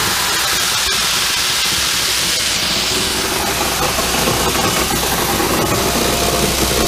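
Satake Evolution optical colour sorter running on popcorn: kernels pouring down its chutes with a loud, steady rushing hiss over a low machine hum.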